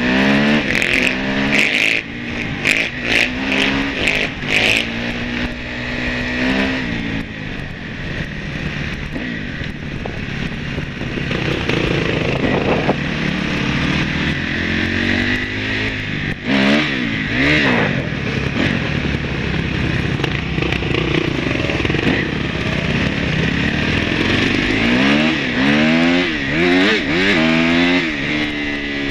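Dirt bike engine, heard from the rider's own bike, running through the gears. Its pitch climbs and drops again and again as the throttle opens and closes: at the start, about two-thirds of the way through, and again near the end. A steady rush of wind noise lies under it.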